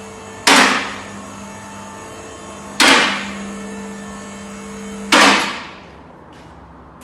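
Workshop vehicle lift raising a car: its electric motor runs with a steady hum, broken three times by a loud sharp clank at regular intervals. The motor cuts out just after the third clank, about five seconds in.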